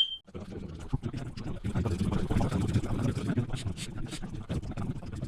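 A smoke alarm's beep cuts off right at the start. After it, speech sped up to many times normal speed runs on as a garbled, rumbling babble with no words to make out.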